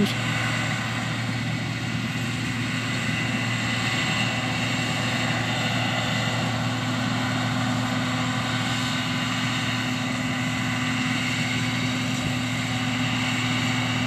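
John Deere 2058 combine harvester running steadily as it cuts winter wheat: an even engine and machinery drone.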